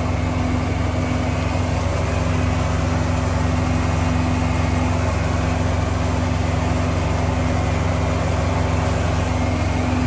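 Diesel engine idling steadily, an even hum that does not change.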